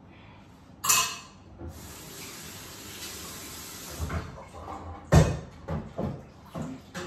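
Kitchen tap running into the sink for a couple of seconds, with a sharp clatter just before it starts. After the water stops, a series of knocks and clatters of dishes in the sink.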